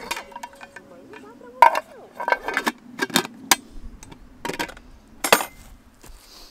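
Metal camp cookware clinking and clattering: mess tins and pot lids knocked against each other and the grill over a campfire, a string of sharp clinks, the loudest about a second and a half in and again near the end.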